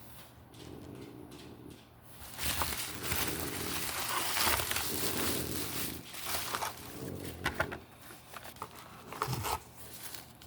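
Cardboard and plastic packaging of a die-cast toy car being handled and opened: a rustling, crinkling stretch from about two seconds in, then scattered clicks and taps.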